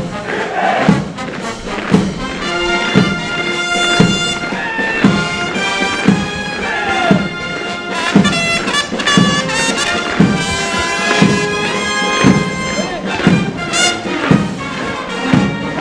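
Military march played by brass and wind instruments over a steady thumping beat, with some shouting voices of marching troops.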